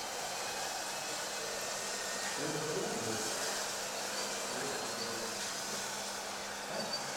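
Radio-controlled model Case 90XT skid steer running, its small electric drive and hydraulics giving a steady whirring hum with a thin high whine.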